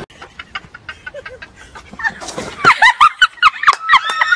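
Faint clicks and rustling, then about two and a half seconds in a loud burst of high-pitched shrieking laughter: a quick run of short squealing cackles.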